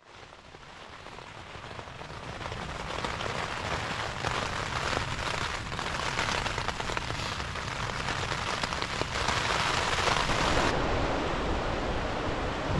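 Rain drumming on a tent's flysheet, heard from inside the tent, building up from silence over the first few seconds. About eleven seconds in it changes to a steadier outdoor rush of wind.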